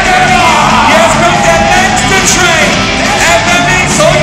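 Loud rock music with a singing voice, played over an arena sound system.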